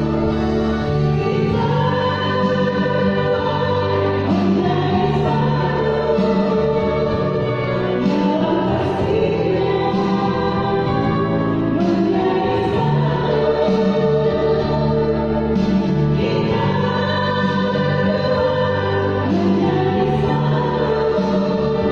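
A virtual choir, separately recorded voices mixed together, singing in harmony: long held chords that move to a new chord every couple of seconds at a steady volume.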